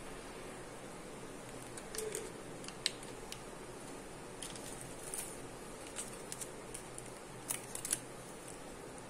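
Faint, scattered crinkles and clicks of plastic candy wrappers being handled, over a steady background hiss.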